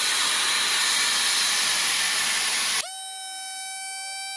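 Compressed air from an air-compressor hose hissing loudly through an inflator nozzle into an inflatable bunker's valve, cutting off abruptly about three seconds in. A steady high tone with overtones follows at a lower level.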